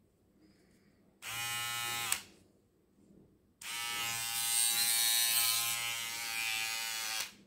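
Remington MB345C beard trimmer's motor switched on and buzzing for about a second, stopping with a click, then run again for nearly four seconds before switching off near the end.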